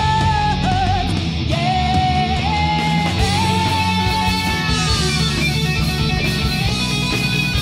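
Live heavy-metal band playing at full volume: electric guitars, bass guitar and drums, with long held, bending high notes on top.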